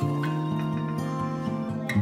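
Background music with long held notes.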